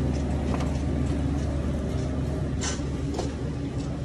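Car cabin noise while driving: a steady engine and road hum with a few faint clicks and one brief hiss near the end.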